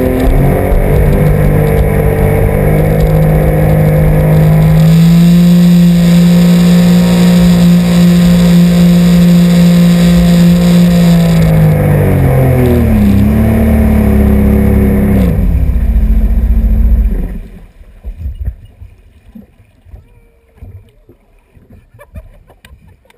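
Sea-Doo RXP-X personal watercraft's supercharged three-cylinder engine running hard with the wake rushing past. Its pitch drops in two steps as it throttles back, about 11 and 15 seconds in. The engine sound falls away about 17 seconds in, leaving only faint water sounds.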